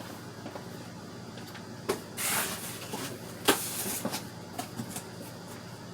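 Hands handling computer parts and their packaging: a click, a short rustle, then a sharper click with more rustling and a few small ticks, over a steady low hum.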